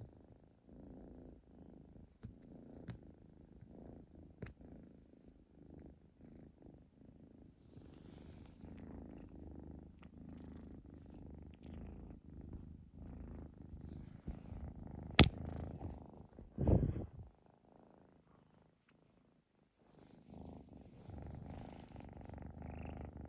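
Tabby kitten purring steadily, the purr stopping for about two seconds near the end before starting again. A sharp click about two-thirds of the way through and a short thump just after it are the loudest sounds.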